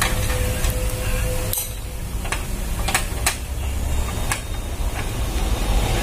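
Long screwdriver working a screw in a photocopier's rear casing, with a few sharp metallic clicks as the tip catches and turns, over a steady low hum.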